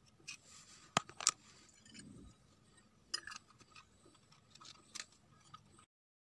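Small metal clicks and clinks of a knife against a miniature steel pudding tin and of a small steel plate set on the tin as it is turned over. A few sharp clicks come about one second, three seconds and five seconds in, and the sound stops abruptly near the end.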